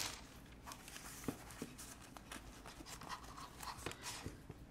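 Quiet handling of a canvas zip pencil pouch: soft fabric rustling and scattered small clicks as its metal zipper is worked open.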